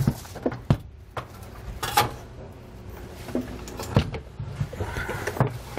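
Fifth-wheel landing gear leg assembly being worked back and forth and lifted out of its mount: irregular metal clunks and knocks, with a couple of short scrapes or squeaks.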